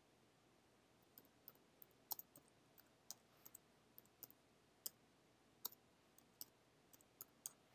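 Computer keyboard keys being typed: quiet, irregular key clicks that start about a second in and come two or three a second.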